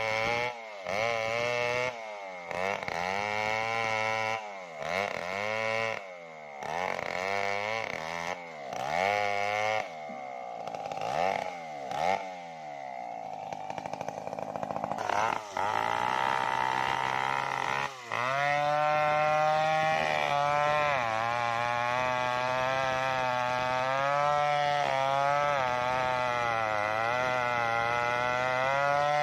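Stihl two-stroke chainsaw ripping a sengon log lengthwise. The engine revs up and down over and over, about once a second, then from about halfway through holds a steady high speed that wavers slightly as the chain cuts under load.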